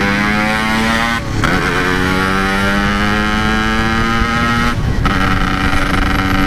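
Yamaha RX-King's 135 cc two-stroke single-cylinder engine pulling through the gears, its note rising and then dropping at an upshift about a second in and again near five seconds. It runs through a standard-looking exhaust with power packing.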